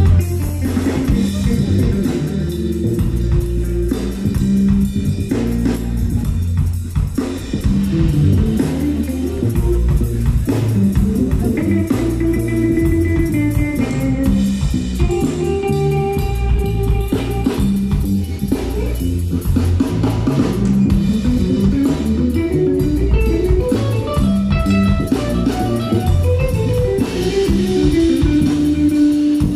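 Live band playing an instrumental groove: electric guitar, electric bass and drum kit, with a single-note melody line moving up and down over a steady beat.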